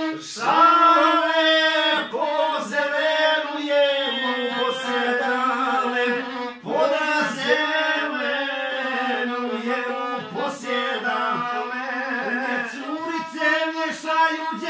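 A man singing a folk song, accompanied by a violin.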